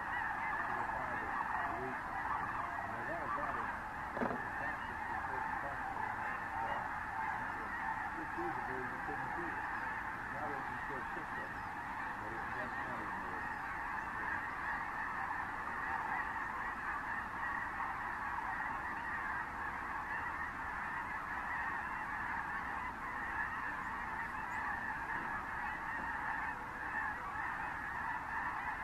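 A huge flock of snow geese flying in and landing, calling all at once. Their massed honking is steady and unbroken throughout.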